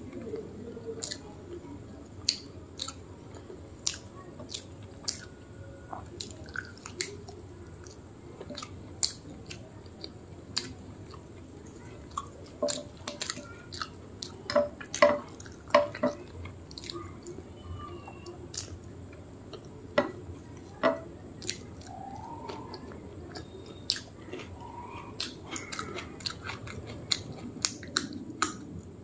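A person chewing a mouthful of rice and mutton curry eaten by hand, close to the microphone, with many short, sharp, irregular clicks of the mouth.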